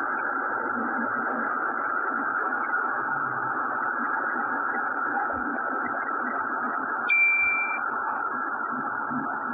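Steady, thin hiss at an even level, with a short high beep about seven seconds in.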